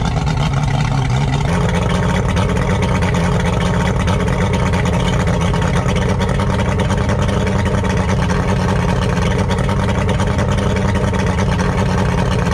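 Yamaha Saltwater Series II two-stroke outboard running steadily out of the water on the trailer, being flushed with fresh water, its telltale stream splashing. Its pitch steps up slightly about a second and a half in, then holds.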